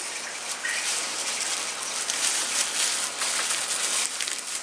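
Plastic packaging crinkling and rustling as it is handled and unwrapped, a dense irregular crackle.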